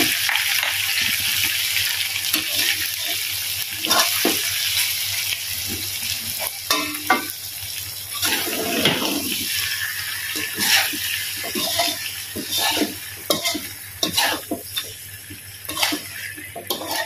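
Chicken, onions and chillies sizzling in a frying pan, the sizzle dying down after the heat has been turned off, while a spatula stirs the food with scattered scrapes and knocks against the pan.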